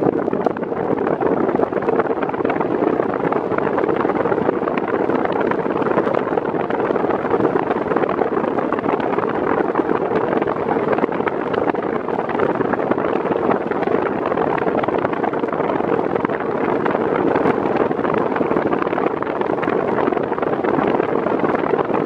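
Arno Xtreme Force Breeze VB40 40 cm fan running steadily on its medium speed, its airflow rushing over the microphone held close to the grille.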